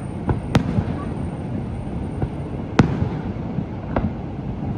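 Fireworks display going off: two sharp bangs of shell bursts about half a second and nearly three seconds in, with several fainter pops between, over a steady low rumble.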